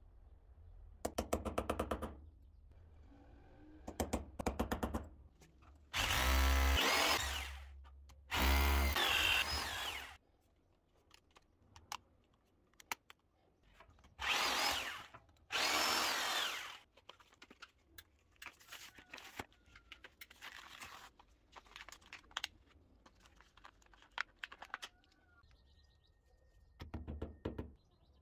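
Electric drill with a long bit boring through ceramic wall tiles at the marked mounting points for a wall-hung wash basin, running in several bursts of a few seconds each, with shorter, weaker runs later on.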